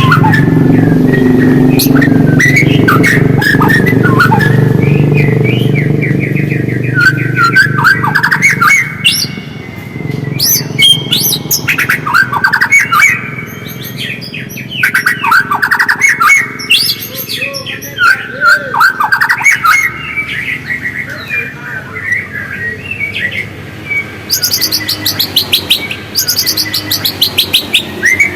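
White-rumped shama (murai batu) singing a long run of varied whistled phrases and rapid twittering trills, with fast, high trills near the end. A steady low hum sits under the song for the first third.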